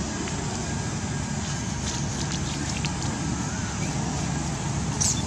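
Steady low outdoor background rumble, with a few short high chirps near the end.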